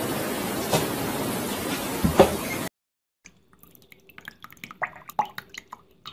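A steady hiss, broken by a soft knock and then a sharp, loud knock about two seconds in. The sound then cuts out briefly, and small water drips and plinks follow as a duckling paddles in a shallow bowl of water.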